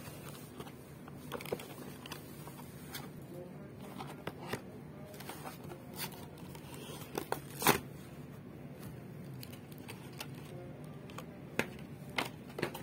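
Cardboard-backed clear plastic blister pack being handled and pulled apart: scattered crackles, clicks and tearing, with the loudest snap about seven and a half seconds in.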